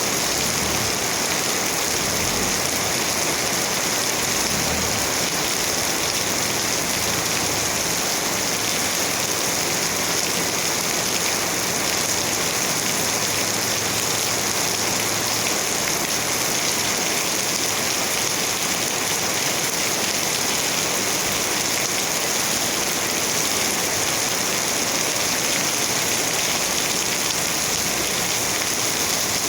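Steady, even rain falling, with no pauses or changes.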